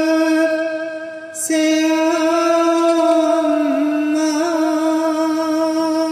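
A man's solo voice chanting a nauha, an Urdu lament, in long held notes, with a short break about a second and a half in.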